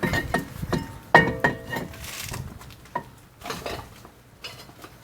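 Steel brake pads and their metal clips clinking and knocking as they are handled and fitted into the caliper bracket: a quick run of sharp metallic clicks, some with a brief ring, loudest about a second in and thinning out toward the end.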